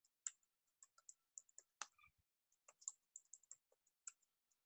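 Faint computer keyboard keystrokes. A new password is typed in one quick run of about eight key presses, and after a pause of about a second it is retyped in a second run.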